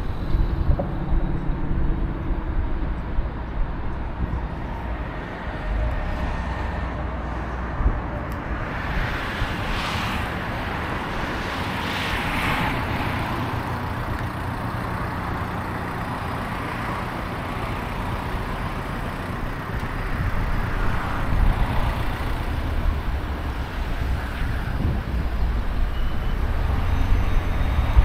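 Road traffic: a steady low rumble of vehicles, with one passing closer and louder from about nine to fourteen seconds in.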